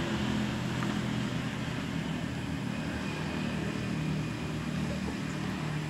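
A motor running with a steady low hum.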